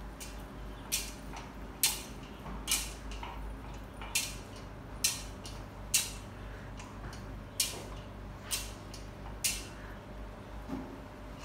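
Metal thurible swung on its chains, clinking sharply in three sets of three strokes about a second apart, the incensing of a coffin.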